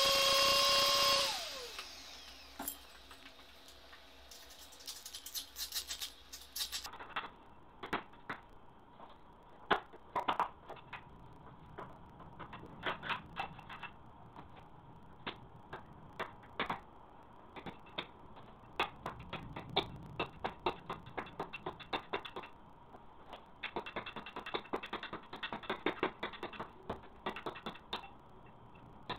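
A power tool's motor running with a steady pitch, switched off about a second in and spinning down. Then scattered light clicks and taps of hand work with tools follow, some in quick clusters.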